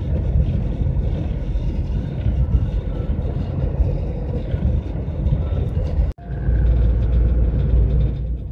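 Road and engine noise inside the cab of a GAZelle van driving on a highway: a steady low rumble. It cuts out for an instant about six seconds in and comes back deeper and louder.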